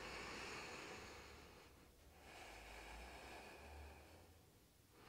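Soft, slow breathing close to the microphone: two long, quiet breaths of about two seconds each, the second starting just after two seconds in.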